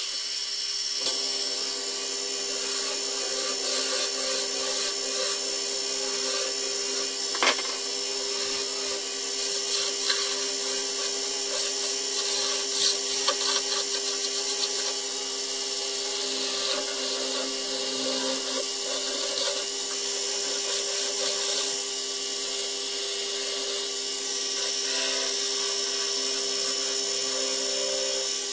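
Wood lathe running with a steady motor hum while a hand-held turning tool cuts and scrapes the spinning wooden spindle. The cutting is heavier and choppier from about eight to fifteen seconds in, with one sharp tick just before.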